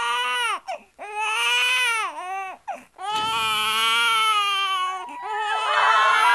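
A newborn baby crying: three long, high wails with short gasps between them, the first cries of a just-delivered infant. From about five seconds in, other voices rise over the crying.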